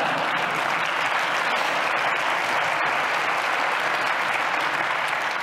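Audience applause, a dense, steady clapping that holds at an even level throughout.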